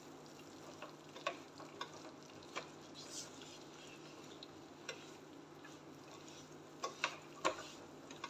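Spatula stirring flour into hot ghee in a frying pan: scattered scrapes and light knocks against the pan over a faint steady sizzle.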